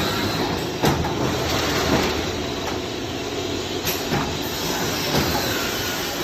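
Jigsaw puzzle bagging machine (vertical form-fill-seal packer) running: a steady mechanical din broken by about four sharp clacks as its pneumatic sealing jaws work through a bag cycle.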